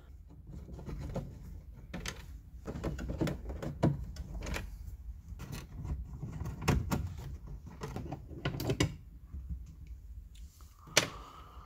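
Irregular clicks, scrapes and knocks of a Phillips screwdriver and hands working on the plastic gauge bezel of a Ford Festiva dashboard as its screws are backed out, with a sharper click near the end.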